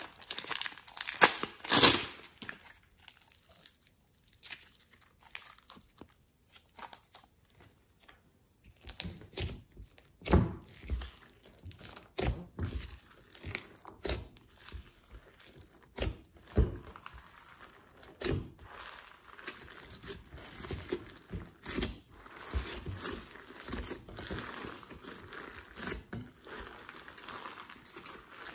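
Thin plastic piping bag crinkling loudly as it is peeled off soft clay, then slime being stretched and kneaded by hand: irregular wet squelches and pops that turn into a denser crackling near the end.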